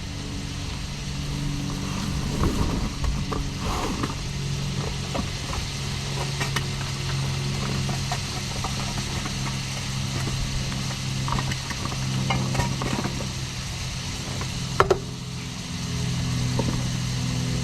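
A running engine with a steady low hum, its pitch shifting slightly near the end, with scattered light clicks and rattles.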